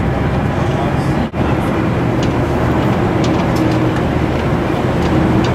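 Engine of an open-sided tour vehicle running steadily as it drives along a rough bush track, with scattered clicks and rattles from the body. The sound briefly drops out just over a second in.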